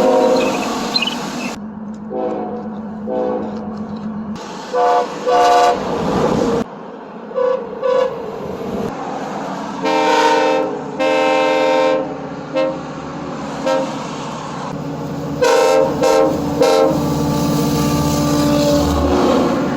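Train air horns sounding a series of short and long blasts, several different horns one after another, with abrupt cuts between them.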